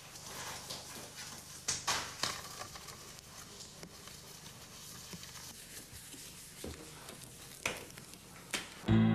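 Rubber medical gloves being pulled on by hand: soft rustling with a few sharp snaps. Acoustic guitar music comes in near the end.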